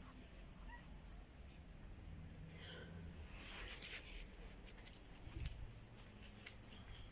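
Faint dog sounds: a short rustle, then scattered light clicks of dogs' claws on paving stones as the dogs walk about.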